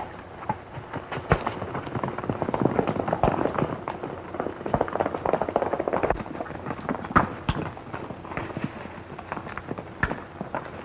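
Horses galloping, a dense irregular clatter of hoofbeats on dirt, busiest in the middle.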